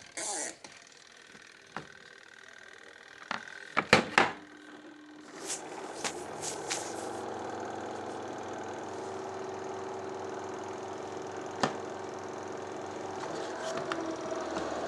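A few clicks and knocks, the loudest about four seconds in, then the twin-tub washing machine's spin-dryer motor starts about five seconds in and runs with a steady hum, the spinner being run after its oil seal was replaced.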